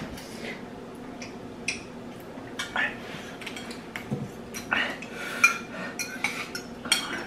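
Metal forks clinking and scraping against bowls as two people eat noodles: irregular sharp clicks, a few ringing briefly, the loudest about five and a half seconds in.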